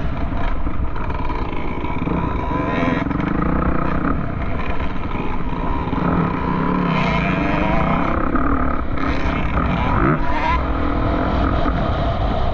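Off-road vehicle engines running and revving, rising and falling in pitch, over a steady low rumble.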